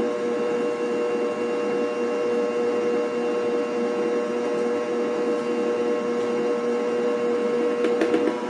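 Electric stand mixer motor running at a steady speed, beating carrot cake batter as flour goes in, with a constant whine. A few sharp clicks near the end as a metal spoon knocks against the mixer bowl.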